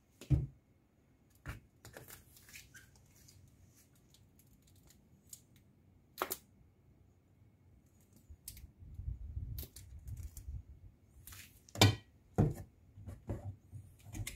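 Scattered sharp clinks and knocks of a metal spoon against a ceramic bowl and glass bottles handled on a kitchen counter while seasoning is measured out and mixed, with a low handling rustle in the middle.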